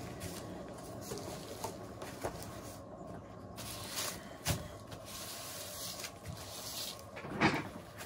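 A painted canvas spinning on a turntable and being slowed and stopped by hand: a few short knocks and bumps, the loudest near the end, over a steady low background noise.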